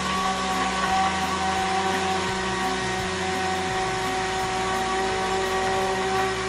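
Immersion (stick) blender running steadily in a pot of liquid coconut-oil soap, its motor giving a constant hum with fixed pitches. It is blending in xanthan gum to thicken the soap.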